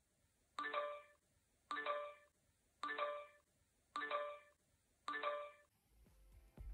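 Hello Watch 3 Plus smartwatch's incoming-notification sound: a short multi-tone chime repeated five times, about once a second. Music comes in near the end.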